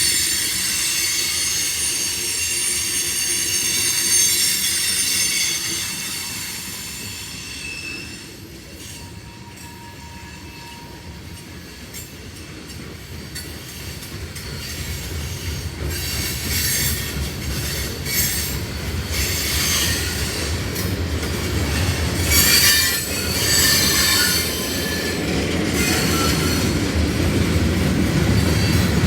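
A train rolling past on the rails, its wheels squealing in several high steady tones for the first several seconds. The sound eases off about a third of the way in, then the rumble and clatter of rail cars build again with short bursts of wheel squeal, loudest near the end.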